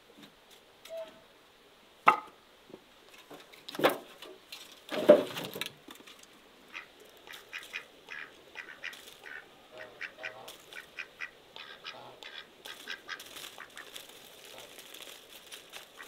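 A white domestic duck quacks a few times, loudest about five seconds in. Then the duck and a hen peck at a dried corn cob on paving stones: a long run of quick, light taps and clicks.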